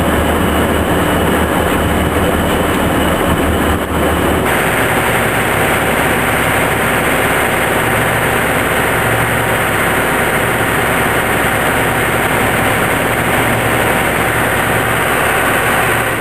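Boat engine running steadily under way, heard from on board over wind and water noise; the mix shifts abruptly about four seconds in.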